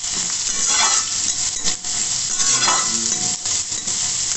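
Diced vegetables, onion and peanuts sizzling in hot oil in a kadhai, with a spatula stirring and scraping across the pan about once a second.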